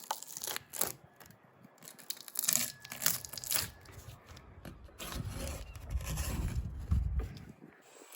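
Rubber trim strip being pulled and peeled away from around a Ford Transit windscreen, tearing and scraping in short strokes, then in one longer pull about five seconds in.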